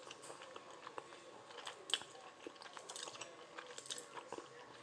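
A person chewing spicy fire noodles close to the microphone: soft, scattered wet mouth clicks and smacks.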